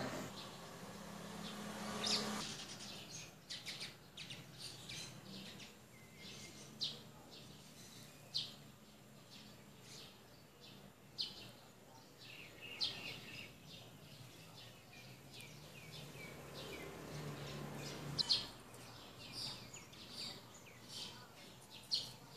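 Bird chirping: short, high chirps, many dropping quickly in pitch, repeated at irregular intervals over a faint low hum.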